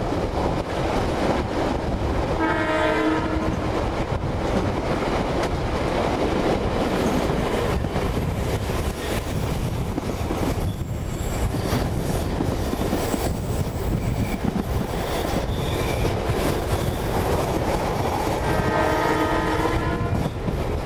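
A passenger train's diesel locomotive sounds its horn twice, a short blast a couple of seconds in and a longer one near the end. Under it runs the steady rumble of the train's running gear on the track, with wind on the microphone from the open carriage window.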